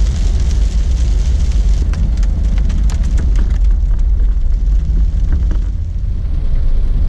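Jeep Wrangler driving: a loud, steady low rumble of engine and road noise with scattered small clicks and knocks.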